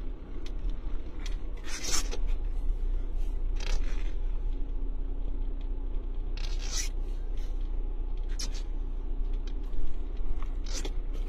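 A four-wheel-drive vehicle driving slowly on snow, heard from inside the cabin: a steady low drone, broken about five times by short scraping noises.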